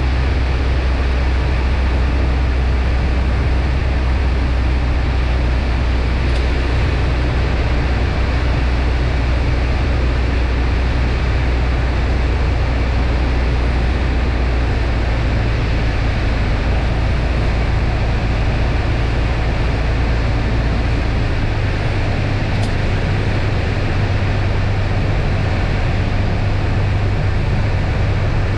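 Piper Cherokee PA-28-161 cabin noise in flight: the four-cylinder Lycoming engine and propeller making a steady loud drone, with rushing air over the airframe. About two-thirds of the way through the low drone changes tone as power is adjusted on the approach.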